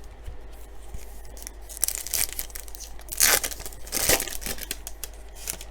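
A trading-card pack wrapper being torn open and crinkled, in a few short ripping, rustling bursts through the middle.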